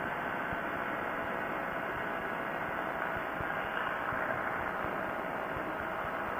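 Quicksilver ultralight's engine and propeller running steadily in cruise flight, mixed with a steady rush of wind, as heard from a camera mounted under the wing.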